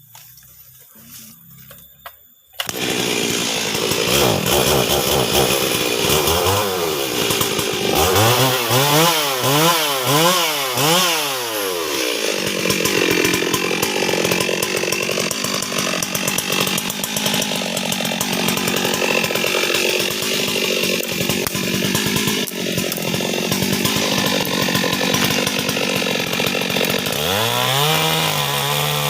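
Stihl MS 382 two-stroke chainsaw bursting into life about two and a half seconds in, revving up and down several times, then running steadily under load as it cuts into a tree trunk, with the revs rising and falling again near the end.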